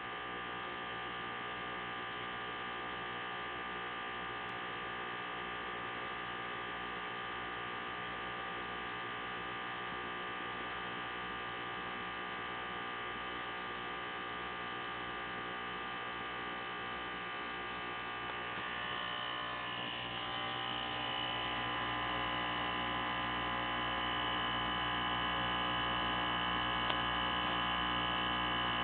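Aquarium equipment running: a steady electric buzz. It grows louder and brighter in tone about twenty seconds in.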